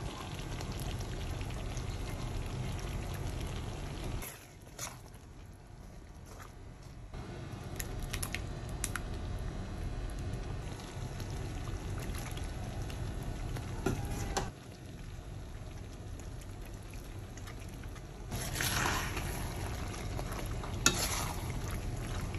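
Cream sauce bubbling and simmering in a frying pan, with occasional clicks and scrapes of a metal spoon stirring the pasta through it. Louder bursts of stirring come near the end.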